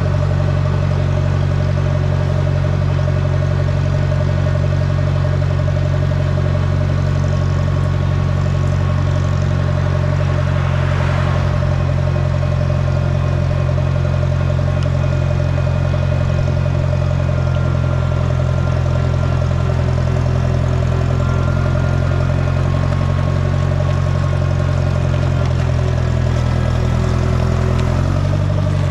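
Allis-Chalmers Model D road grader's engine running at a steady speed, its pitch dropping slightly near the end as it slows.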